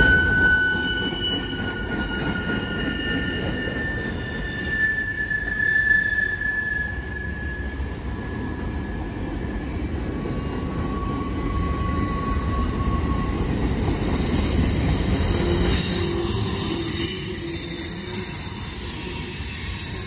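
Freight cars rolling past with a steady low rumble, their wheels squealing in long, high, drawn-out tones that shift in pitch from one squeal to the next.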